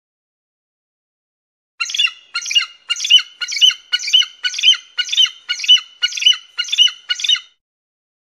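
Bald eagle calling: a run of about a dozen high, sharp, piping notes, roughly two a second, starting about two seconds in.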